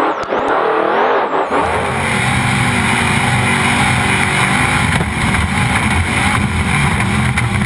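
Trophy Truck engine running hard under racing load, heard from inside the cab. About a second and a half in the sound changes abruptly, the deep low engine note coming in much stronger and staying steady.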